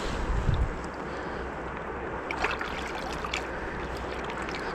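Steady rush of a river's flowing current, with a brief low rumble about the first half-second.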